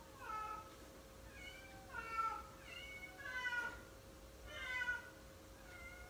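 Domestic cat meowing, several short calls in a row, each falling in pitch.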